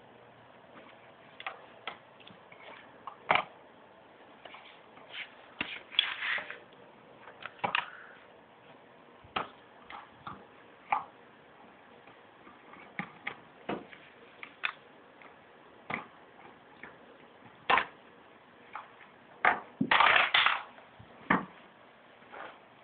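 Small objects being handled: irregular sharp clicks and knocks, a few seconds apart, with two short rustling scrapes about six and twenty seconds in.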